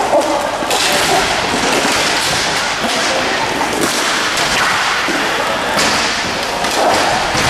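Inline hockey play: thuds and knocks of sticks and puck against the boards, over a dense steady noise, with a few brief shouted voices.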